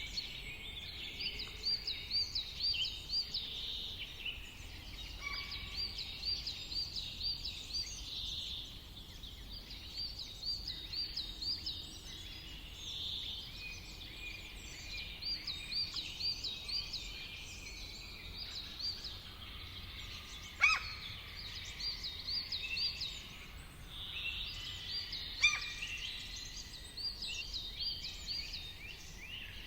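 Several songbirds singing. One repeats short phrases of quick looping notes over and over, and others chirp around it. A sharp downward call stands out about two-thirds of the way through and again a few seconds later, over a steady low background hum.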